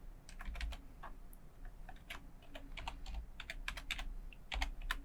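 Computer keyboard typing: irregular quick keystrokes, with a few pauses, as an email address is typed in.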